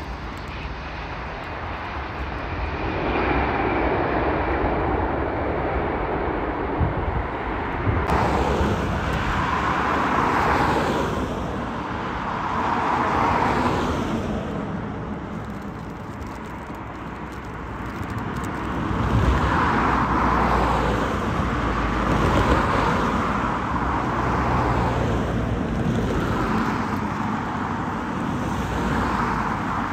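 Jet airliner engines heard across an airfield. First a Boeing 737 just after touchdown, its engine noise rising about three seconds in as it slows. Then a Boeing 787 taxiing, its engine noise swelling and fading.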